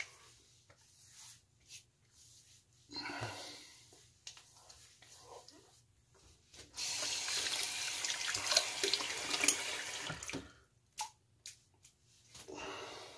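Tap water running into a bathroom sink for about three and a half seconds, starting about halfway in and stopping suddenly, as the face is rinsed between shaving passes. Shorter, quieter splashing noises come before it and near the end.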